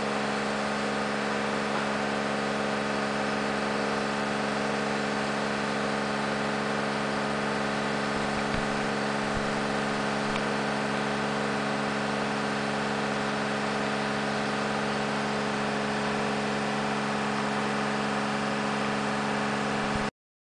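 High-pressure fogging system running: a steady hiss of water atomising through the fine-fog nozzles over a steady low mechanical hum. It cuts off abruptly near the end.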